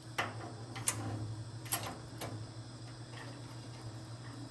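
A few sharp metallic clicks and taps, a metal clamp being handled and set on the steel workpiece, over a steady low hum.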